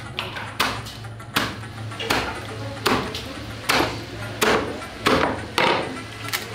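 A heavy broad-bladed knife chopping through whole fish onto a wooden cutting board. About nine sharp chops come at a steady pace, roughly one every three-quarters of a second.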